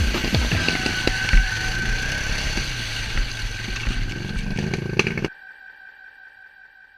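ATV engines running with a steady whine and scattered knocks and clatter. The sound cuts off abruptly about five seconds in, leaving a faint ringing tone that dies away.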